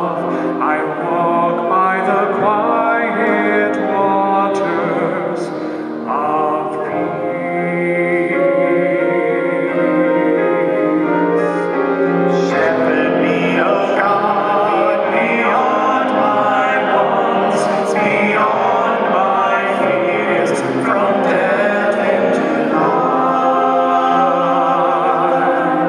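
Church singing with instrumental accompaniment: the responsorial psalm sung after the first reading of a funeral Mass.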